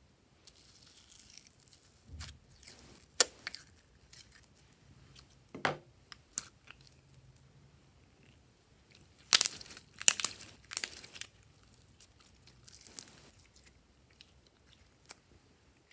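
Glossy slime being stretched and squeezed by hand: sticky pops, clicks and tearing crackles at irregular moments, with the loudest cluster a little past the middle.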